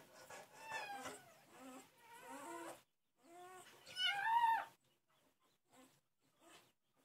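Newborn Saint Bernard puppies squealing and crying in high, wavering calls, the loudest a single rising-then-falling cry about four seconds in; after that only faint soft ticks.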